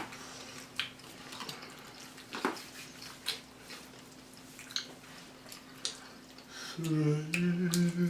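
Close-up chewing of loaded nachos: scattered crunches and wet mouth clicks. Near the end a person hums a long 'mmm' of enjoyment.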